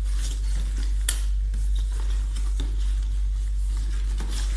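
Cardboard gift box and its paper packaging being handled and opened, with scattered rustles and a sharp click about a second in, over a steady low hum.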